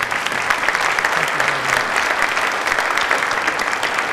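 Audience applauding, a steady dense clapping that keeps on across the whole stretch.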